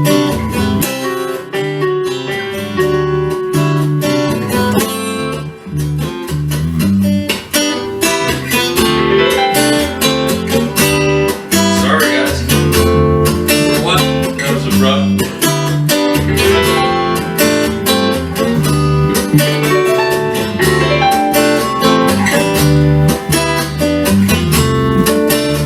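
Music: acoustic guitar strummed and picked in an instrumental passage of a song.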